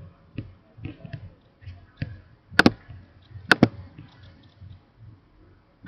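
Computer mouse clicking: two sharp clicks about a second apart, with a few fainter taps and light thumps in between.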